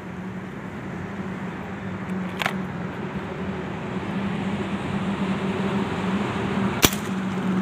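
Break-barrel Artemis 1000 air rifle fired once, a single sharp shot about seven seconds in, while zeroing on a wall target. A shorter click comes about two and a half seconds in, over a steady low hum.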